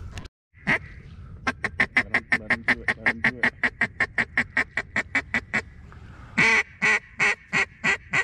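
Duck call blown by a hunter: a long, even run of quick quacks, about seven a second, then a few louder, longer quacks near the end, meant to draw passing ducks to the decoys.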